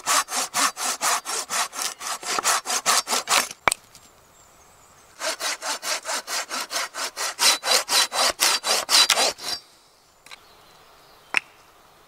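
Hand pruning saw cutting through a dry branch in quick back-and-forth strokes, about five a second, in two runs of a few seconds each with a pause between. A single sharp knock comes near the end.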